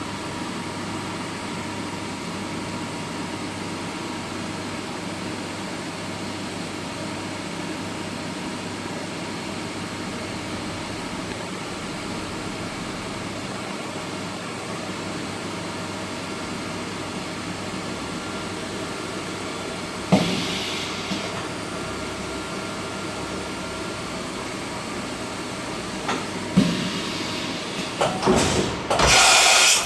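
Steady machine hum with a faint steady tone, then sudden bursts of hiss with knocks from about two-thirds of the way in, loudest and most frequent near the end.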